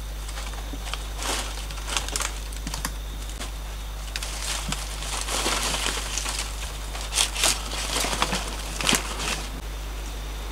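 Dry palm fronds rustling and crackling as they are handled and pushed into place on a hut roof. The crackling comes in irregular bursts, with a few louder sharp snaps in the second half.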